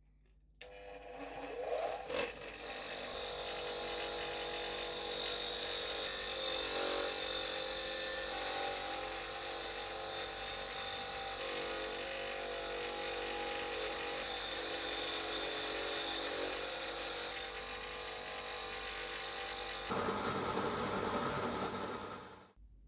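An electric power tool starting up and running steadily for about twenty seconds, then cutting off abruptly just before the end.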